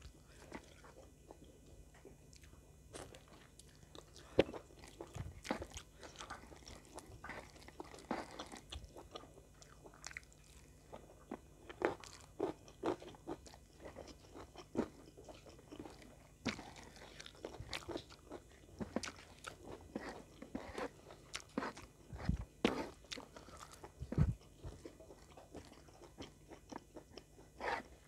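Close-miked eating: irregular chewing and crunching as mouthfuls of rice, sweet-soy chicken and petai beans are eaten by hand, with short sharp crackles and clicks scattered throughout.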